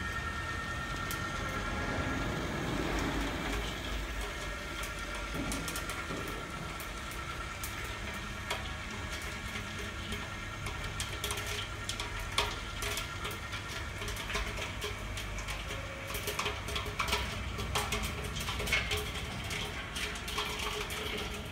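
Corn kernels popping inside the closed kettle of a gas-fired spherical commercial popcorn machine. The sharp pops come more often and louder over the second half, over a steady low hum from the machine.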